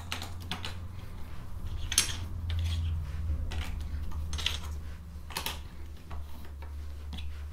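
Plastic Lego pieces clicking and clattering as they are handled and pressed into a row of Lego plates, in irregular sharp clicks about a second apart.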